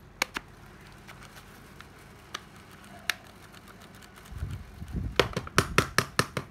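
Handling noise from a cordless-tool battery pack as its terminals are probed: a few separate clicks, a low rubbing about four seconds in, then a quick run of sharp plastic clicks and taps near the end.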